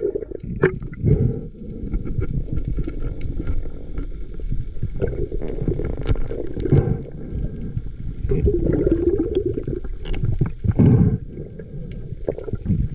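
Muffled underwater noise heard through a camera's waterproof housing: a low rushing and gurgling of water that swells and fades, with scattered knocks and clicks as the diver handles a speared dogtooth tuna on the spear shaft.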